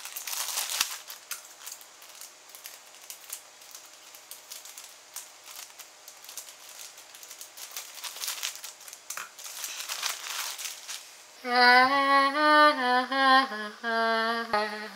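Clear plastic polybag crinkling and rustling on and off as it is opened and the folded t-shirt is worked out of it. About eleven seconds in, a man sings a few held notes that step up and down in pitch.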